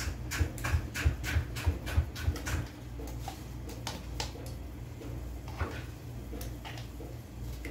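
Yogurt being knocked out of its container onto chicken in a plastic mixing bowl: a run of sharp knocks, about three a second, for the first two and a half seconds, then a few lighter taps.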